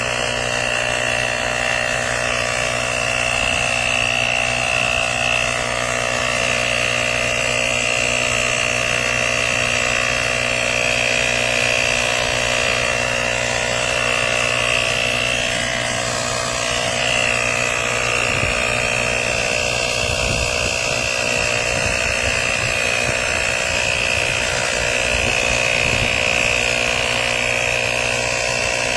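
Cordless portable tire inflator's electric compressor running steadily: a constant motor drone with a high whine over it.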